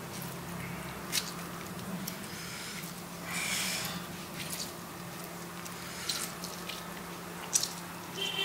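Lime halves squeezed by hand: soft wet squishing and dripping of juice, with a few sharp clicks, the loudest near the end. A steady low hum sits underneath.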